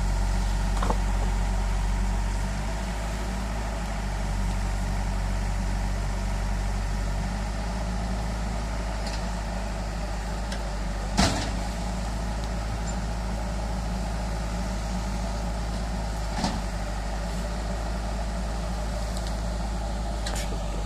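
JCB backhoe loader's diesel engine running steadily at a low, even hum, a little louder in the first two seconds, while the arm lifts a coconut tree's root ball. A sharp knock sounds about halfway through and a lighter one a few seconds later.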